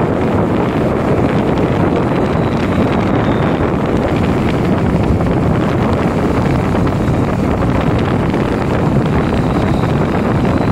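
Steady wind rush buffeting a phone microphone carried on a moving vehicle, mixed with road and engine noise.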